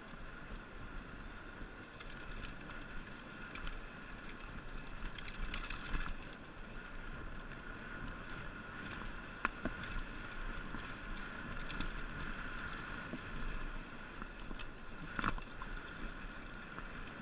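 Mountain bike running fast down a rough dirt trail: tyre and frame noise with a steady high whir, wind buffeting the microphone, and a couple of sharp knocks from bumps, about halfway and near the end.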